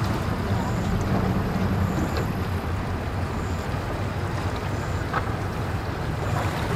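Outboard motors idling at a boat ramp, a low steady hum that eases off about two and a half seconds in, under wind noise on the microphone.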